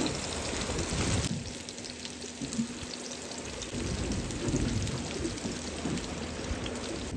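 Fish pieces frying in a pan, a steady sizzle, with low rumbling from wind on the microphone.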